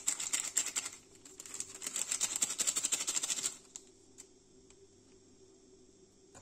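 A paper powder sachet crackling with fast, crisp ticks as it is shaken and tapped to empty the powder into a steel mixing bowl; it stops suddenly about three and a half seconds in, leaving a few single clicks. A low steady hum runs underneath.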